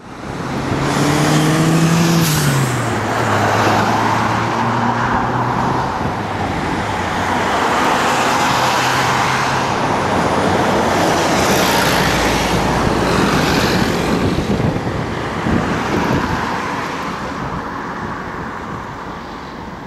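Road traffic passing close by: vehicles go by one after another in swells of tyre and engine noise. About two seconds in, one vehicle's engine note drops in pitch as it passes.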